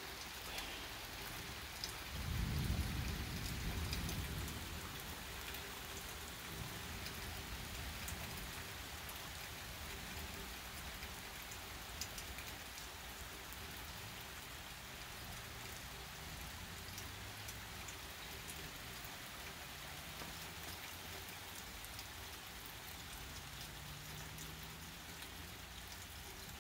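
Heavy rain falling steadily on a wet street and pavement. A low rumble of thunder comes in about two seconds in and fades over a couple of seconds.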